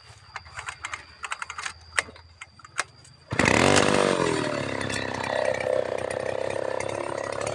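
A few scattered light clicks and knocks, then a bit over three seconds in a two-stroke chainsaw comes in loud, its engine speed dipping and climbing before settling into a steady run.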